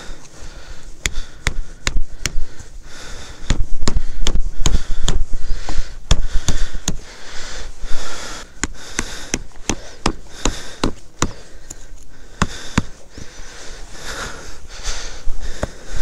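A Quechua MH100 tent being pitched: a string of sharp, irregular clicks and knocks over rustling handling noise, with a few sniffs.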